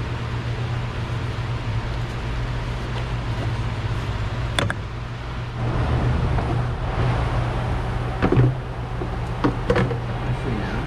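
Steady low hum of a shop fan, with scattered clicks and knocks of tools and parts being handled. The loudest knock comes about eight seconds in.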